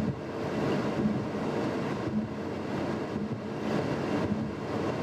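Steady cabin noise inside a 2015 Ford Mustang EcoBoost cruising at about 40 mph on light throttle: an even hum of tyres and the 2.3-litre turbocharged four-cylinder, with the air conditioning blowing hard.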